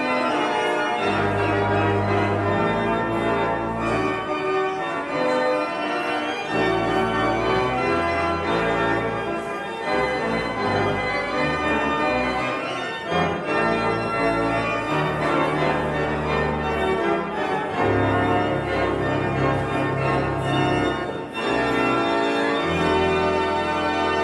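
Church organ playing held chords over a bass line that changes note every second or two.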